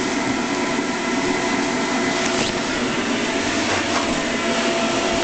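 Electric blower fan keeping an inflatable bounce house inflated, running with a steady whir and a faint hum.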